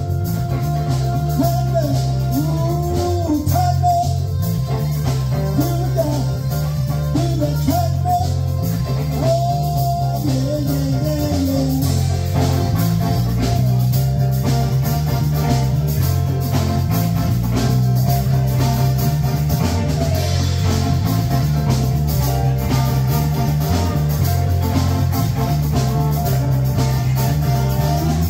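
Live dance band playing an instrumental stretch: electric guitar over a steady bass line and drum kit.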